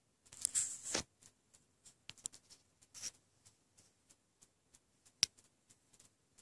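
Pet rabbit munching hay: scattered crisp crunches and rustles, with a denser rustling burst about half a second in and a single sharp click about five seconds in.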